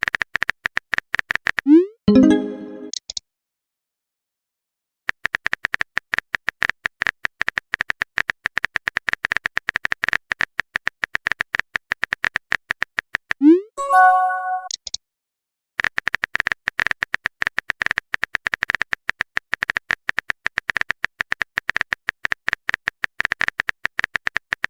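Rapid, evenly spaced clicks of a phone-keyboard typing sound effect, running in two long stretches. Short pitched message-notification tones sound about two seconds in and again about thirteen to fourteen seconds in.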